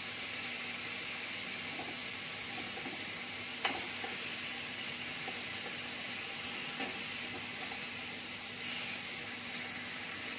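Thinly sliced marinated beef sizzling steadily in a nonstick frying pan over a gas burner, with metal tongs turning the slices and one sharp click about a third of the way in.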